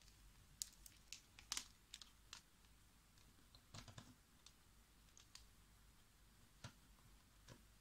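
Faint scattered clicks and taps as test-lead plugs are pushed into a digital multimeter's input sockets and the leads are handled, with a small cluster of clicks about four seconds in.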